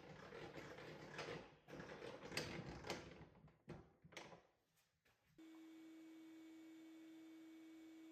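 Faint, irregular knocks and scrapes of plywood drawer parts being handled on a workbench. About five seconds in they give way to a faint, steady hum.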